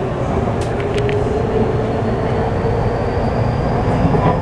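Tokyu 3000-series electric train running, heard from inside the car. The traction motor whine from its Hitachi IGBT-VVVF inverter rises steadily in pitch as the train gathers speed, over a heavy rumble of wheels on rail, with a few sharp clicks about a second in.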